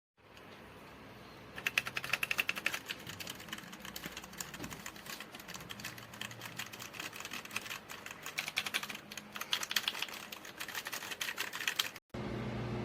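Fast typing on a Royal Kludge RK84 mechanical keyboard: a rapid, uneven run of key clicks that starts about a second and a half in and stops near the end.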